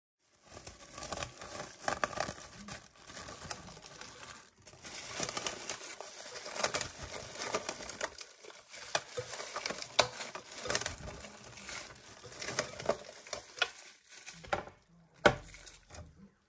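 Clear plastic wrap being stretched and pressed over the rim of a glass bowl: continuous crinkling with many sharp crackles, pausing briefly about four and eight seconds in.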